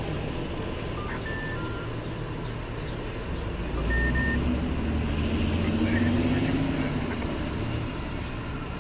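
Heavy diesel vehicle engines running, a bus pulling away and BeLAZ haul trucks. The engine note swells and rises in pitch about four seconds in, then eases off near the end, with a few brief high beeps early on.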